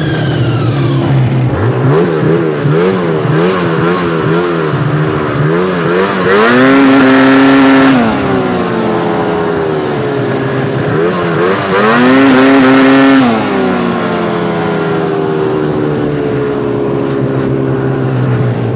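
Ski-Doo Summit XRS snowmobile engine running with the throttle blipped in quick rises and falls, then revved up and held high twice for about two seconds each before dropping back to a lower steady speed. The sled is making an odd noise whose cause the owner can't figure out.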